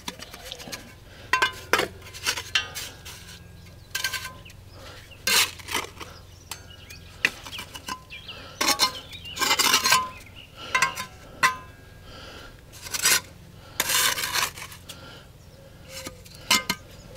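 Mason's trowel scraping and clinking against concrete blocks and mortar as a block course is laid: irregular scrapes and taps, with a longer scraping stretch about nine to ten seconds in.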